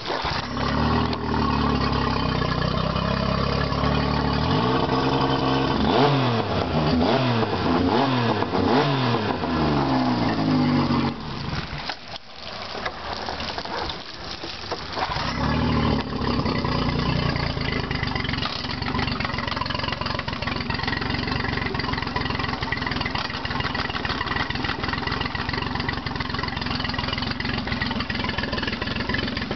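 2006 Mercury 40 hp four-stroke tiller outboard starting at once and running, revved up and down several times in the first ten seconds. The sound drops away briefly around twelve seconds in, then the engine runs steadily.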